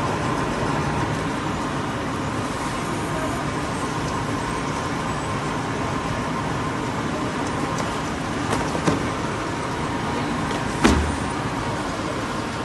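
Steady background noise with a faint high hum, broken by two short knocks, the louder one near the end.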